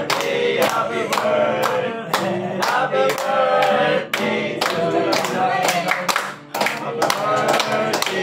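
A small group of male voices singing a song together, clapping in time to the beat.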